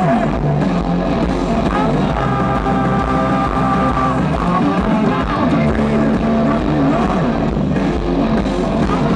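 Live rock band playing loudly, with electric guitar lines that bend in pitch over bass and drums.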